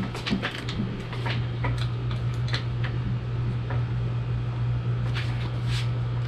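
Light clicks and ticks of hand tools working on a mountain bike's stem and headset as the stem bolts are loosened, scattered irregularly and thickest in the first few seconds and again near the end, over a steady low hum like a fan.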